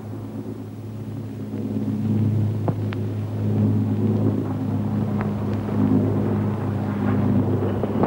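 A steady low droning hum that holds throughout, with a few sharp cracks scattered through it.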